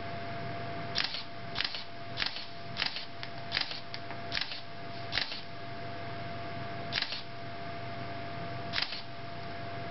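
Canon digital SLR's shutter and mirror firing again and again, triggered by an intervalometer: about nine double clicks, at first roughly every 0.6 s, the gaps then lengthening to nearly two seconds as the interval setting is raised.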